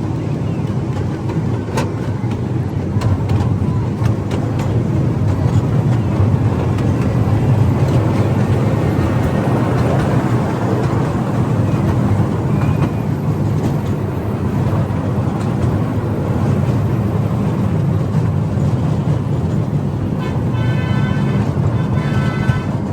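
Steady low rumble of a small tourist ride-on train running. Near the end a short pitched tone sounds twice.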